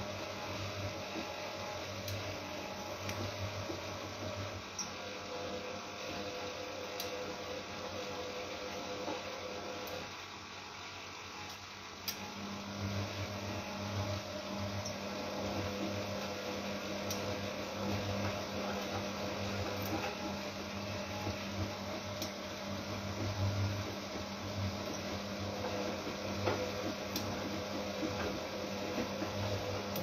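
Siemens Siwamat Plus 573 front-loading washing machine running a wash, its motor turning the drum with the laundry tumbling. The motor eases off for a moment about ten seconds in, then starts again and keeps turning the drum.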